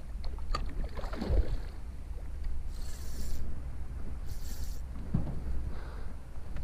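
Wind rumbling on the microphone, with a heavy knock about a second and a half in and two short, high hissing rasps about three and four and a half seconds in.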